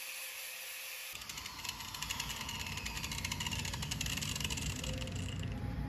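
Angle grinder working on the steel tone ring of a 6.0 Powerstroke crankshaft. It starts cutting into the metal about a second in, taking a divot off before welding, with a steady grinding noise and crackle.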